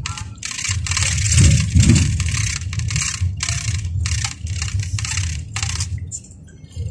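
Rattling and road noise inside a moving vehicle: a steady low rumble under choppy, clattering noise, which drops away for a moment near the end.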